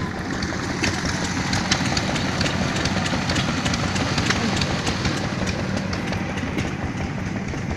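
An engine running steadily, with a scatter of light clicks and rattles over it.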